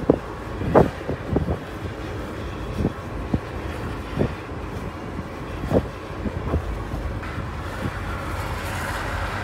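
Steady wind rumble on a fast-moving microphone along an asphalt road, with irregular short knocks scattered through the first seven seconds.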